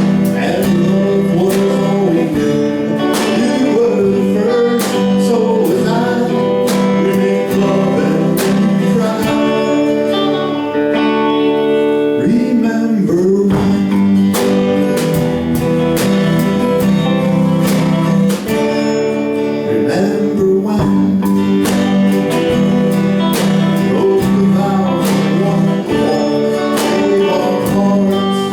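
Live band playing a slow country song: strummed acoustic guitar with a voice singing over it.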